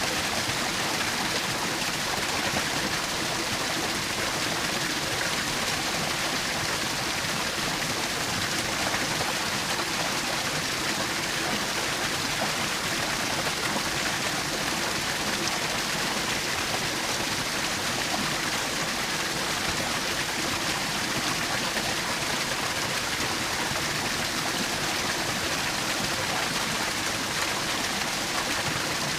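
Small woodland waterfall: water splashing and rushing in a steady, unbroken hiss.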